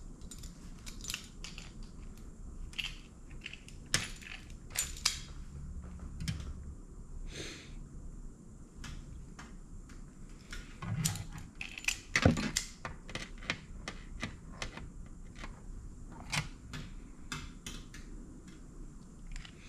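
Irregular small clicks, taps and light metal rattles of hand work on a motorcycle turn signal's small hardware, with a louder flurry of knocks a little past halfway.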